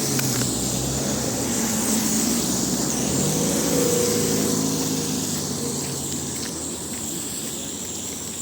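A car passing by: its engine hum grows louder to a peak about halfway through, then fades away.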